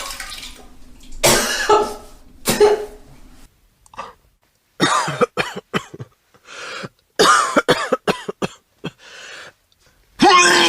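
A person retching and gagging in a series of short heaves, some with a strained voiced sound, separated by brief silences. A longer, louder heave starts near the end.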